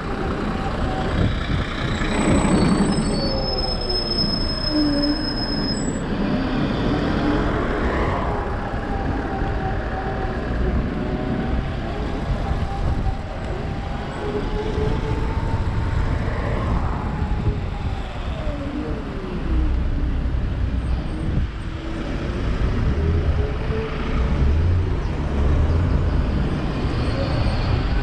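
Super Soco TC Max electric motorcycle's hub motor whining, its pitch slowly rising and falling as the bike speeds up and slows, over wind and road rumble.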